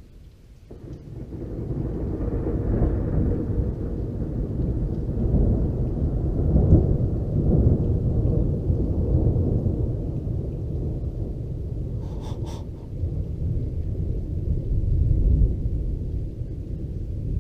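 Rolling thunder from a lightning strike about 1.3 km away. A deep rumble swells up about a second in, is loudest around the middle, and keeps rolling to the end.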